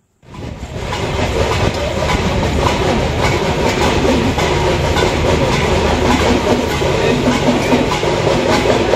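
Live sound of a village festival procession: a dense, steady clatter of quick percussive strikes over crowd noise. It fades in during the first second.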